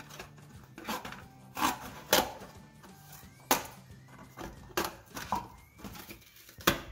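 Kitchen scissors cutting through a Tetra Pak milk carton: about seven sharp snips and crunches of the coated paperboard, spaced irregularly.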